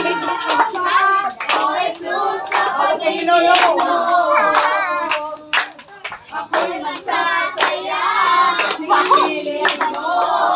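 Children singing together while clapping in time, about two claps a second; the singing drops away briefly around the middle and then resumes.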